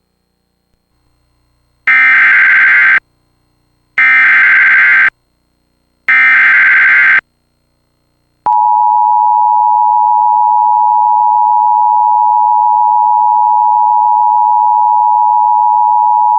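Emergency Alert System broadcast alert: three bursts of SAME header data tones, each about a second long and two seconds apart, then about eight and a half seconds in the steady two-tone EAS attention signal begins and holds for about eight seconds. The alert announces a National Weather Service severe thunderstorm warning.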